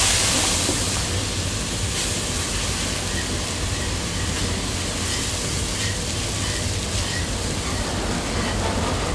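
Milk poured into a hot butter-and-flour roux in a frying pan, sizzling and hissing, loudest at the start and settling to a steady sizzle as it is stirred.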